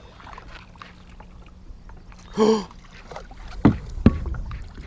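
Steady low wind and water rumble on an open fishing boat, with a short vocal exclamation about two and a half seconds in and two sharp knocks close together about a second later.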